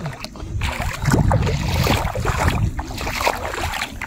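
Sloshing and splashing of feet wading through shallow, muddy pond water, in uneven bursts that grow louder about a second in, with wind rumbling on the phone's microphone.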